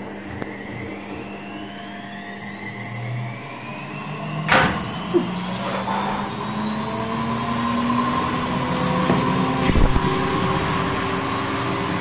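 Beko front-loading washing machine's drum motor speeding up, a whine that climbs steadily in pitch throughout. A sharp knock about four and a half seconds in, another soon after, and a couple more about ten seconds in.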